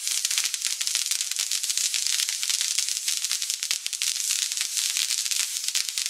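Fireworks burning on a castillo, a lattice firework tower: a dense, continuous hissing crackle of showering sparks, full of rapid tiny pops.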